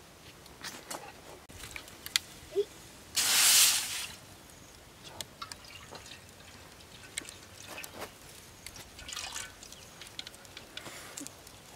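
Water poured from a bamboo tube into a wok over a wood fire: one loud splashing pour lasting about a second, then scattered drips and small clicks.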